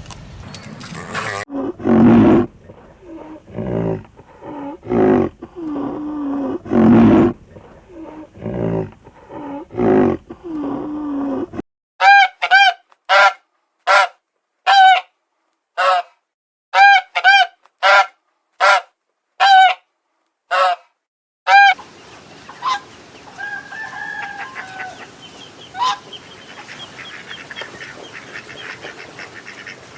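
Farm animal calls in three spliced stretches: a run of lower-pitched repeated calls, then about a dozen short, sharp, high calls with dead silence between them, then a quieter outdoor background with a few fainter calls.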